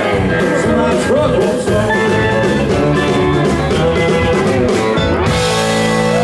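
Live country band of electric guitar, pedal steel, bass, keys and drums playing an instrumental passage to a steady drum beat. About five seconds in, the beat stops and the band holds a final chord under a cymbal wash.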